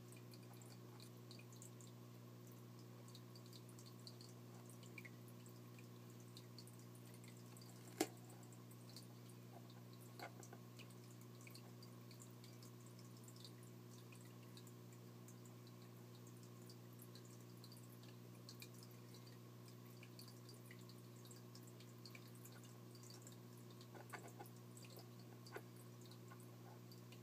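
Faint steady hum of an aquarium filter, with scattered small drips of water. A single sharp click about eight seconds in.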